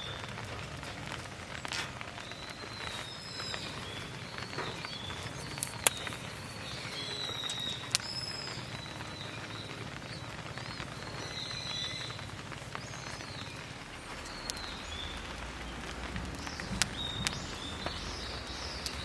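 Birds chirping repeatedly over a steady hiss of rain, with a few sharp clicks or cracks scattered through.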